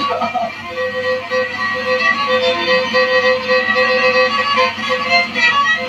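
Black Sea kemençe playing a quick horon dance tune, with a lower note sounding steadily under the short melody notes.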